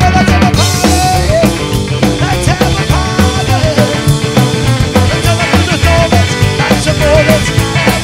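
Live rock and roll band playing loud with a steady beat: upright bass, drum kit and a wandering lead melody line.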